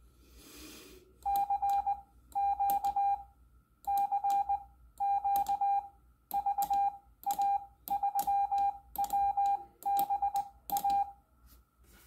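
Morse code sidetone beeps from a phone's speaker: one steady mid-pitched tone keyed on and off by hand on a straight key, sending "CQ CQ VA3WBA" in ten letter groups, with a click at each press of the key.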